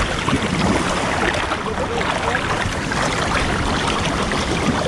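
Water splashing and churning close to a body-worn camera as people wade and swim across a river, an even, steady wash of noise.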